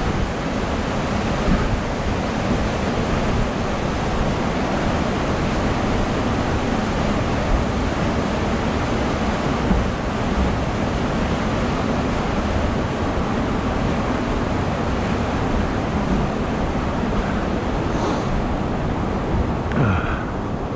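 Steady rushing noise throughout, of the kind made by wind buffeting a moving camera's microphone or by nearby moving water.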